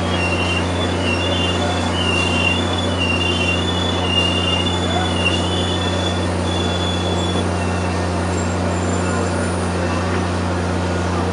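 Steel wheels of passenger cars squealing against the rails as the train rolls slowly: a wavering high screech that fades out about two-thirds of the way through, over a steady low hum and rolling noise.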